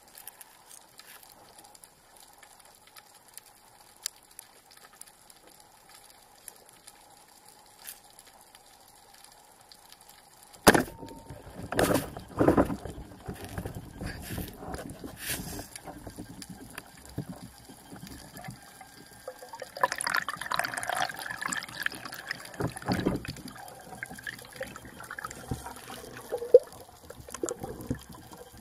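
Water sloshing and gurgling around a spearfisher's camera. After a quiet stretch with faint ticks, a sudden loud knock comes about ten seconds in, followed by uneven splashing and knocks.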